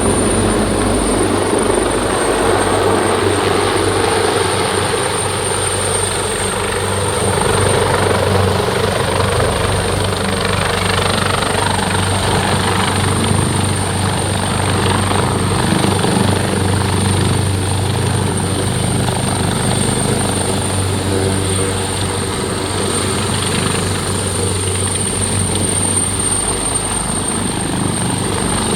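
AgustaWestland AW139 twin-turbine helicopter in flight: a loud, steady drone of engines and rotors, with a thin high whine held over it. Heard from inside the passenger cabin.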